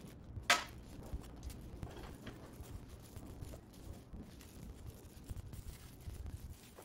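Loose, weathered wooden staves and lid pieces of an old ice cream freezer bucket being handled on a workbench: scattered light wooden knocks and scraping, with one sharp knock about half a second in.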